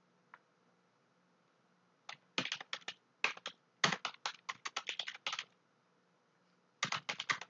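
Typing on a computer keyboard: a single click, then a quick run of keystrokes lasting about three seconds, a short pause, and another run of keystrokes near the end.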